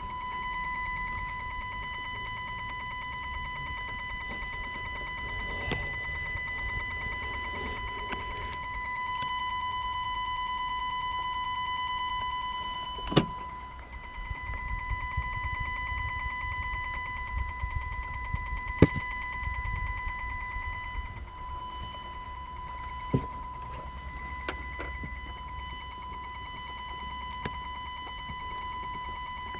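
A strange steady high-pitched whine from a Dacia Logan MCV, holding one constant pitch with overtones above it, over a low rumble. Three sharp clicks come during the middle stretch.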